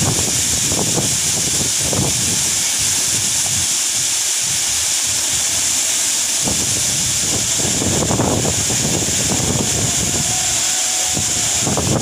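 Waterfall pouring down a rock face into a plunge pool: a steady, loud rushing hiss. Uneven low rumbling gusts of wind buffet the microphone now and then.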